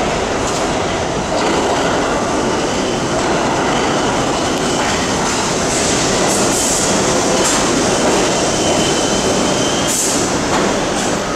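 R62A subway train arriving at a station platform: a steady rumble of wheels on rail, with a few sharp clicks over rail joints and a faint high wheel squeal partway through.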